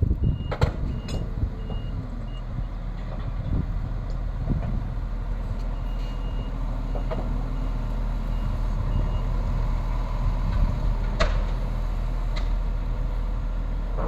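Heavy construction crane's diesel engine running steadily, with a high-pitched warning alarm beeping in two spells, and a few sharp metal knocks, once early and twice late.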